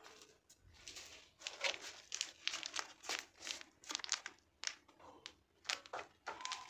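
Plastic popcorn packet crinkling as it is handled in the hand, a run of short, irregular crackles.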